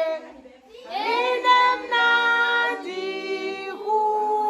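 Children and women singing a birthday song together in isiXhosa, with long held notes. There is a brief pause for breath just after the start.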